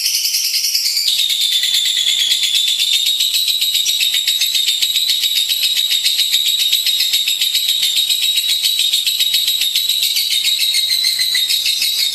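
Lovebird singing a long, unbroken, high-pitched trill of very rapid notes, shifting slightly in pitch about a second in.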